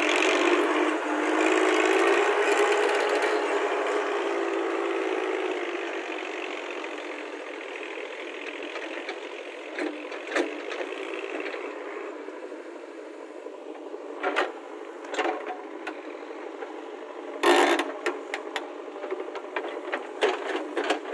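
Massey Ferguson tractor engine pulling away with a loaded trolley, loud at first with a steady pitched note that fades over the first several seconds. Later come scattered knocks, one loud thump about two-thirds of the way in, and clanking and rattling near the end as a JCB backhoe loader's bucket digs into soil.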